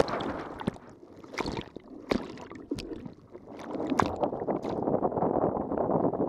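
Water splashing and rushing past a windsurf board under sail, with wind on the microphone. In a quieter stretch there are many sharp splashes and drips, then a steady rush of water starts about four seconds in.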